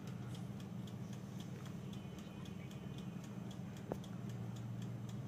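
Electric countertop oven running while it bakes, with a steady low hum and its mechanical wind-up timer ticking about four times a second. A single sharper click about four seconds in.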